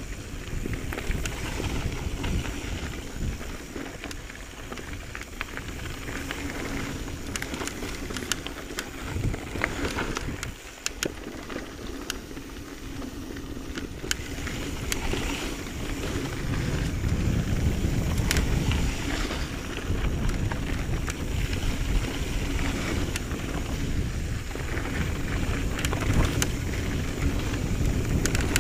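Mountain bike ridden over a dry dirt singletrack: wind rushing over the microphone and tyres rolling on dirt and gravel, with frequent sharp clicks and rattles from the bike. The rumble grows louder about halfway through.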